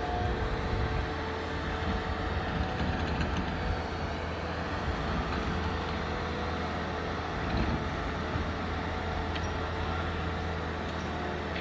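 Mobile boat hoist (travel lift) running as it drives along with a sailboat hanging in its slings: a steady engine drone with a constant whine above it.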